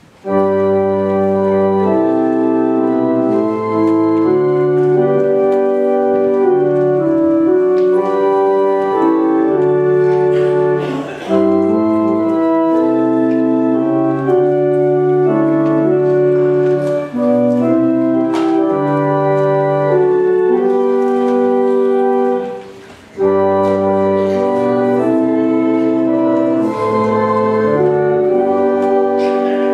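Church organ playing slow sustained chords in phrases, with a short break between phrases about 11, 17 and 23 seconds in.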